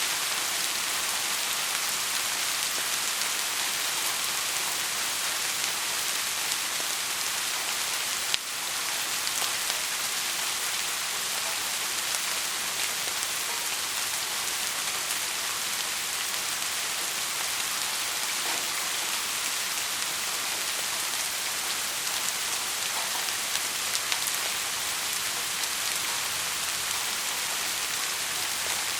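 Heavy rain falling steadily, a dense even hiss of countless drops on a surface. A single sharp click about eight seconds in.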